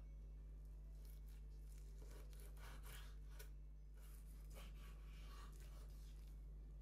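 Kitchen knife slicing through raw chicken thigh and touching a bamboo cutting board: a run of faint, irregular soft cuts and scrapes over a low steady hum.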